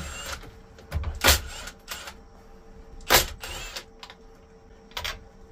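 Metal clicks and knocks as cable lugs are pulled off the corroded terminals of 6-volt lead-acid golf cart batteries: three sharp knocks about two seconds apart.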